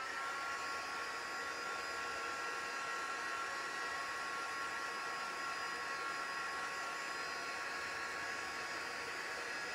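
Handheld electric air dryer blowing steadily over damp paper craft pieces. Its motor winds up with a short rising whine at the start, then holds a steady whine over rushing air.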